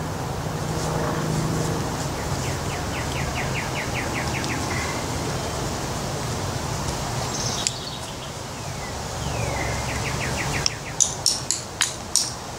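Quick runs of bird chirps over a steady outdoor background, then near the end six sharp hammer blows in quick succession on a steel sledgehammer head, knocking out what is left of the old wooden handle in its eye.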